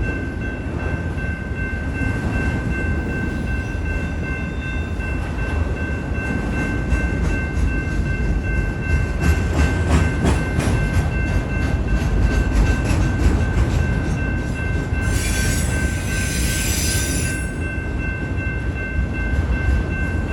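Train cars rolling past with a steady rumble and rapid wheel clicks over the rail joints, and a loud hiss lasting about two seconds near the end. Steady high tones sound throughout.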